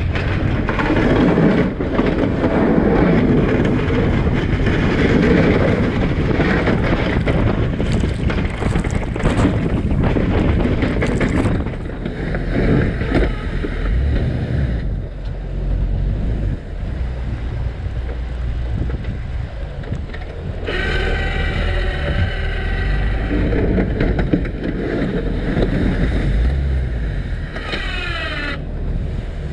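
Jeep Wrangler TJ running under load as its front snow plow pushes icy snow, with a steady low rumble and a rough scraping noise, and wind buffeting the microphone. A whining tone comes in about two-thirds of the way through and again briefly near the end.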